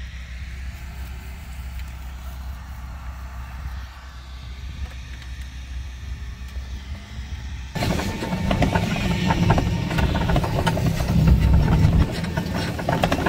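Small utility vehicle's engine running as it drives along a rough dirt track. About eight seconds in, the sound turns abruptly louder and rougher, full of rattles and jolts from the vehicle bouncing over the ground.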